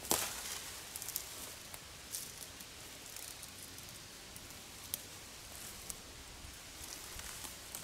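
Faint rustling and crackling of dry leaves and twigs as someone moves about in brush, with a sharper crack right at the start and scattered light ticks after it.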